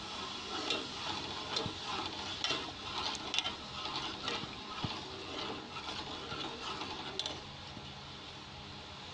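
Steel ladle stirring sugar syrup cooking in a steel pot: scattered scrapes and clinks of the ladle against the pot over a steady bubbling hiss, quieter for the last second or so.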